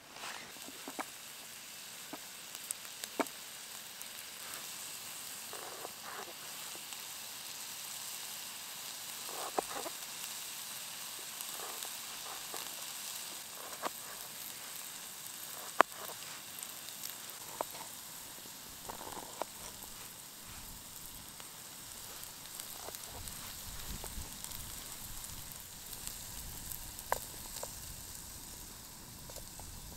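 Diced onions sizzling steadily in a frying pan on a camping stove, with scattered sharp clicks of a knife slicing cherry tomatoes on a plastic plate. A low rumble joins in near the end.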